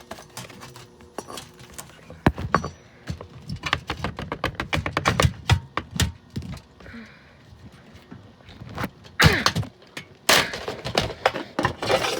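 Repeated, irregular hammer blows smashing a plastic Lasko box fan, with thunks and cracking plastic.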